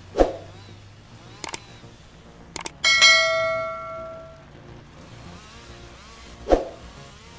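A single loud metallic ring, like a struck bell, about three seconds in, fading away over a second and a half. Two low thuds, one near the start and one near the end, and a few sharp clicks come before it.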